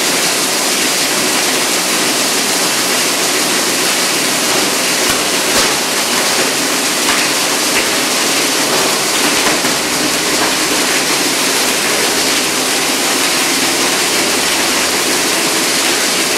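A 20 HP three-phase UPVC pipe grinder running, its rotor chopping PVC column pipe into granules: a loud, steady grinding noise with a few sharper cracks near the middle.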